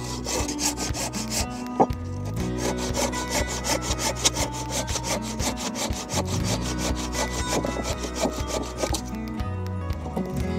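Handsaw cutting through a pallet-wood batten in fast, even back-and-forth strokes, stopping about nine seconds in. Background music plays underneath.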